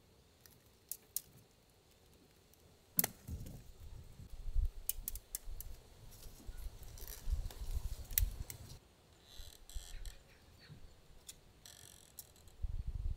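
Thin wooden plant stakes clicking and tapping against each other as they are handled, pushed into a potted plant's soil and gathered into a bundle, with leaves rustling and low handling bumps. The sharpest click comes about three seconds in.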